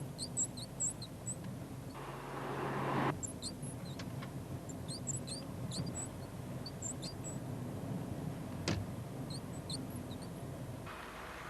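Short, high-pitched squeaks in quick clusters of two or three, coming and going over a low background hum, with a single sharp click about nine seconds in.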